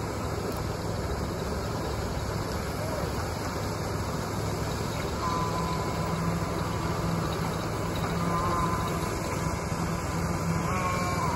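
Ride-on concrete power trowel running steadily as it finishes a concrete floor slab: an even engine hum under a broad noise.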